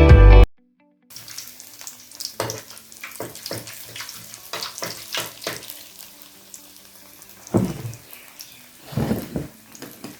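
Food frying in hot oil, a faint crackling sizzle with scattered pops, joined by two duller thuds near the end. Guitar music cuts off about half a second in.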